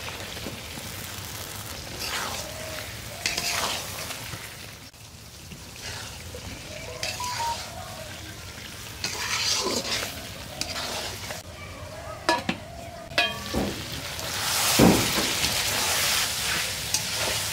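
Fried pointed gourd pieces being stirred in a pan of sizzling spiced gravy, a spatula scraping the pan in repeated strokes. The sizzling grows louder near the end.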